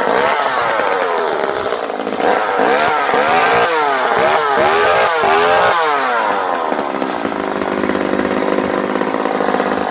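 Vintage JoBu SL2 34cc two-stroke top-handle chainsaw running just after a pull start, with a quick series of throttle blips about halfway through that make the engine speed rise and fall, then running at a steady speed.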